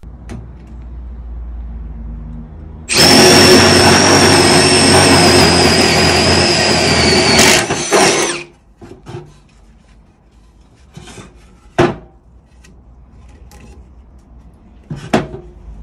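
Cordless drill boring through a wooden board with a flat spade bit: a loud, steady high-pitched whine with cutting noise, starting about three seconds in and lasting about five seconds. Afterwards come scattered light clicks and two sharp knocks.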